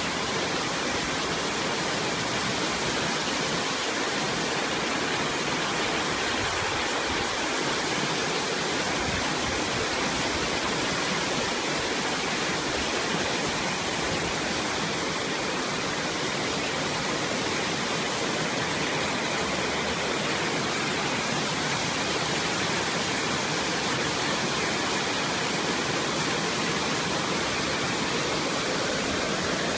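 Heavy downpour: rain pouring steadily in a dense, even hiss that does not let up.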